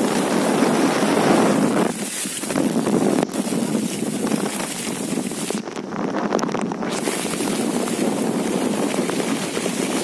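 Heavy tropical downpour with strong gusting wind: a loud, steady rushing hiss, with wind buffeting the microphone.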